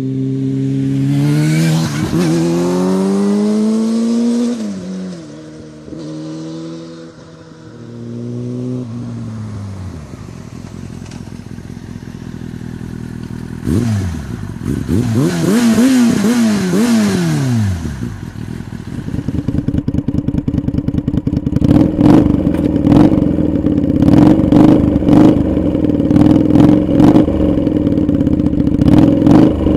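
Yamaha R6 inline-four sport bike with a Scorpion Factory exhaust accelerating hard through the gears, its pitch climbing and dropping at each shift. It fades, then comes back and passes close with the pitch rising and then falling. Then a Yamaha Virago 125 V-twin with straight exhaust pipes idles with a lumpy beat and blips its throttle again and again.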